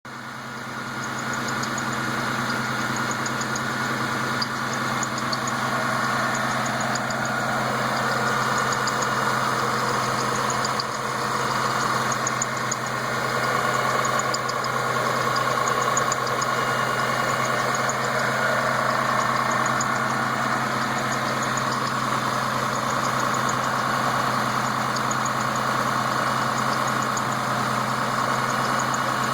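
Freshly built car engine idling steadily, with a high, short chirping squeak that repeats in quick clusters from the inner drive belt. The owner cannot tell whether a bad tensioner bearing or the belt itself is the cause, since all the parts are new.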